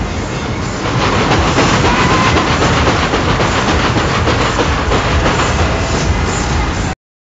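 Bayern Kurve ride's bobsled cars running at speed around the banked track, a loud continuous rumble and clatter of wheels on rails. It gets louder about a second in and cuts off abruptly near the end.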